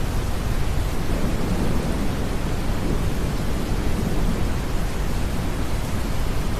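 Steady deep brown noise blended with rain hiss. A low roll of distant thunder swells about a second in and fades out about four seconds later.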